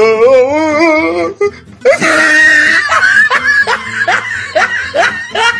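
Music with children laughing over it, a run of quick repeated laughs starting about two seconds in.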